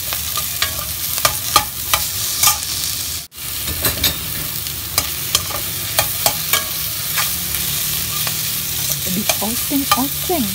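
Winged beans stir-frying in a wok: a steady sizzle with frequent clicks and scrapes of the spatula against the pan as they are tossed.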